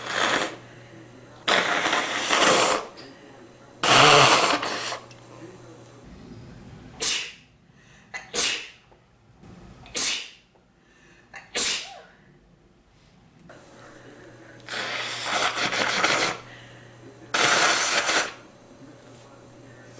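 A man sneezing over and over, about nine sneezes in all. Longer, drawn-out ones come near the start and end, and short, sharp ones in the middle.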